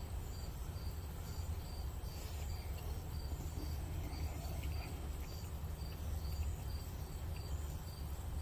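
Crickets chirping in an even rhythm, about two chirps a second, over a steady low rumble.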